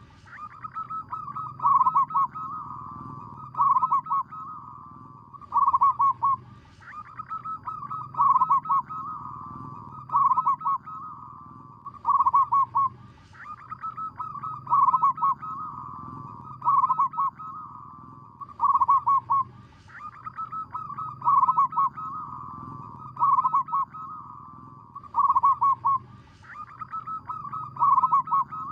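Zebra dove (perkutut) cooing: a rapid, staccato run of short coos about every two seconds, repeated steadily over and over.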